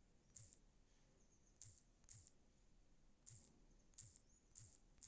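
Faint, irregular clicks of digits being tapped in on a smartphone's on-screen keyboard, one click per key, about seven in all.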